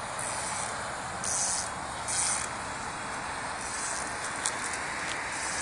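Fly line swishing through the air and rod guides during casting: a few short hissing swishes about a second apart, with a couple of faint clicks near the end, over steady outdoor background noise.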